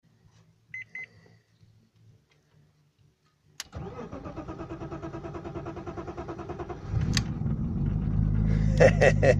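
Two short beeps about a second in, then a click and the BMW 325i's straight-six cranking on the starter in a steady rhythmic pulse for about three seconds. About seven seconds in it catches and runs, growing louder.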